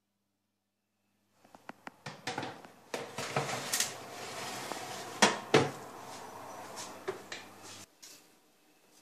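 A metal baking tray clattering and scraping as it is slid onto the rack of an oven, over a steady hum, with two sharp knocks about halfway through. The sound cuts off suddenly near the end.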